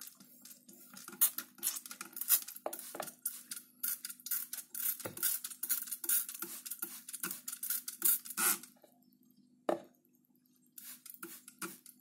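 Hand-held plastic spray bottle misting water onto potting soil: quick repeated trigger pumps, each a short click and hiss, about two or three a second, with a pause of about two seconds near the end before the pumping starts again.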